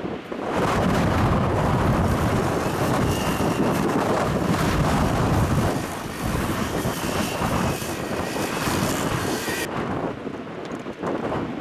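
Strong wind gusting and buffeting the microphone, a loud rushing roar that eases about ten seconds in.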